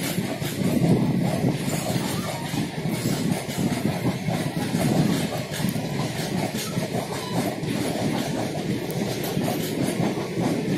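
Indian Railways passenger coaches rolling past a platform as the train pulls out, with a steady rumble of wheels on rail and repeated clicking of wheels over rail joints.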